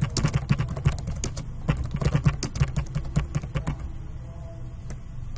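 Rapid keystrokes on a computer keyboard as a line of text is typed, over a steady low hum. The clicking thins out and goes quiet for a moment about four seconds in.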